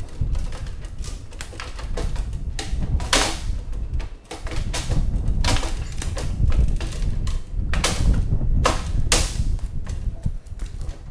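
Hand tools clicking and knocking in an aircraft engine compartment, with scattered sharp clicks, several close together near the end, over a steady low rumble.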